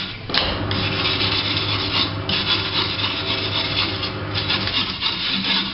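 Motorcycle wheel rim being scrubbed clean with a powered abrasive tool: a steady rasping scrape over a low motor hum, with brief dips in the scraping about two seconds in and again a little past four seconds.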